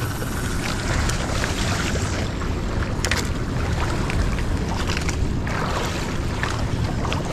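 Wind buffeting the microphone over choppy sea water slapping against the hull of a small outrigger boat, with a few short sharp ticks scattered through.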